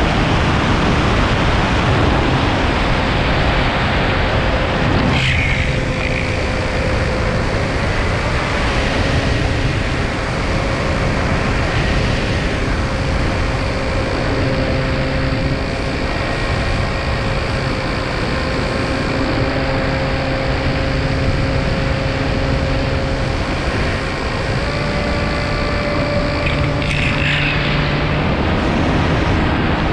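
Loud rushing wind on an onboard camera's microphone, mixed with the steady hum of the FPV chase drone's electric motors, whose tones shift in pitch now and then.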